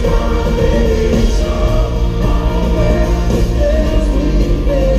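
A live pop band plays with lead singing over an arena PA, heard from far back in the audience; the music is loud and continuous.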